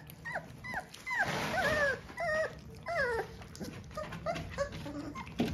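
Rhodesian Ridgeback puppies whining, a string of short, high cries that fall in pitch, about two a second. The cries grow fainter after about three seconds.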